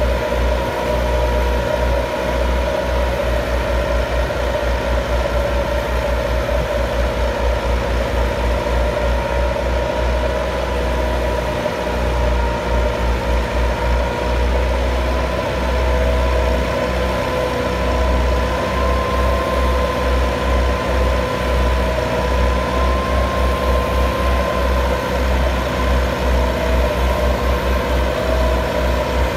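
Massey Ferguson 375 and 385 tractors' four-cylinder diesel engines working hard under load while pulling a rotavator through soil: a steady drone with a throbbing low rumble.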